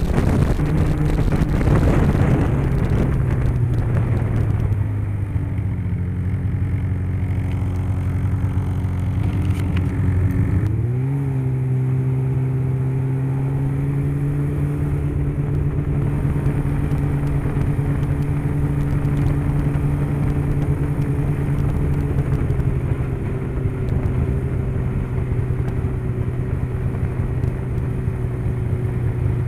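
Polaris Rush 600 Pro-R snowmobile's two-stroke twin engine from the rider's seat. It starts with wind rushing over the microphone as the sled slows, then runs steadily at low trail speed. A short rise in revs comes about a third of the way in.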